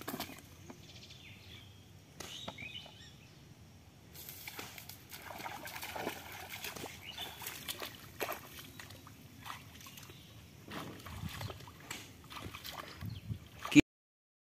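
Bare feet wading through shallow muddy pond water and wet grass, with irregular splashing, sloshing steps. A single sharp click near the end, then the sound cuts off.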